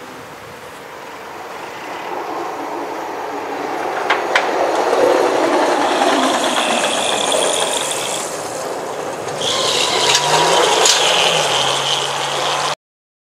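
A motor vehicle passing close by: engine and tyre noise builds over several seconds to a loud, steady rush, with two sharp clicks about four seconds in. The sound cuts off suddenly near the end.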